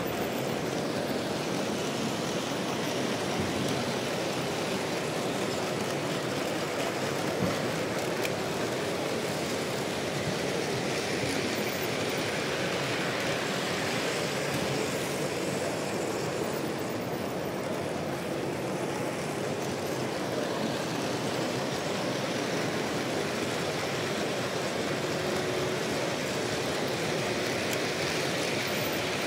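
Steady, even background noise of a large exhibition hall: a dense, unbroken rumble and hum with no clear single event.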